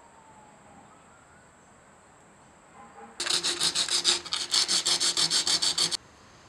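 Quick back-and-forth rubbing strokes by hand over a freshly filled crack in a cherry plywood edge, working the repair smooth. About seven strokes a second, starting about three seconds in and stopping abruptly after nearly three seconds.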